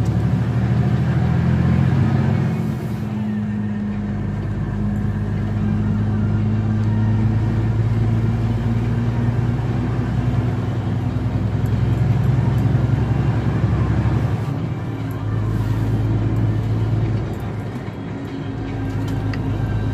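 Inside a truck cab on the move: steady engine drone and road noise at cruising speed, a low even hum that eases briefly near the end.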